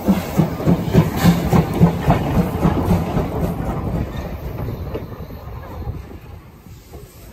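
Steam train running with an even rhythmic beat of about three to four pulses a second, which fades away over the last few seconds.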